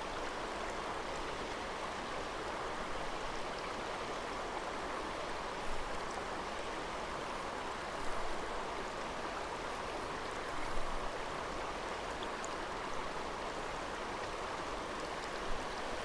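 Creek water rushing steadily over rocks, with a few brief soft knocks along the way.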